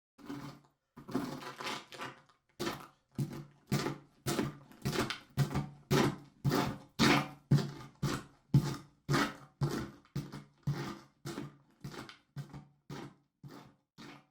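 Footsteps walking at a steady pace, about two steps a second, growing louder to the middle and fading away near the end, as if someone walks past.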